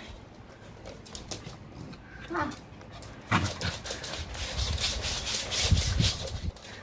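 Bichon frise playing tug-of-war with a fabric strap toy: dog sounds with scuffling and rubbing of the toy and paws on a wooden floor. It is quiet at first, with one short sound a little past two seconds in, and turns loud with many sharp clicks about three seconds in.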